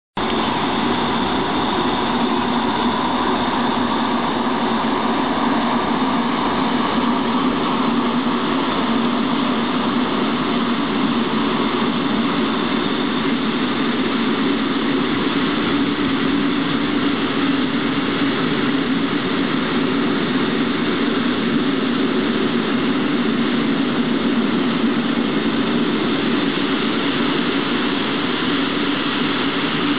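Diesel locomotive engine of a class 740 (ČKD T669) diesel-electric running steadily as it hauls a freight train past, mixed with the rolling noise of the open freight wagons.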